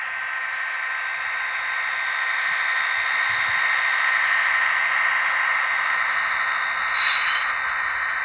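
Intermountain SD40-2 model locomotive running with its sound decoder playing diesel sound through the small on-board speaker: a steady hissy drone that grows a little louder over the first few seconds, with a short burst of hiss about seven seconds in.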